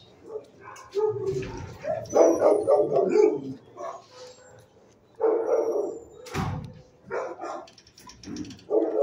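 Dogs barking in short bursts of several barks at a time in a shelter kennel, with a sharp knock about six and a half seconds in.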